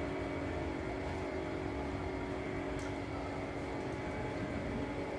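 A steady mechanical hum from an unseen machine, even and unchanging, with a brief high chirp about three seconds in.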